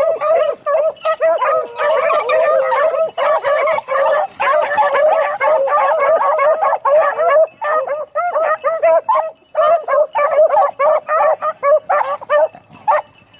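A pack of beagles baying as they run a rabbit's scent trail, several dogs calling over one another in quick repeated cries. The chorus is dense at first and thins to more separate calls in the second half.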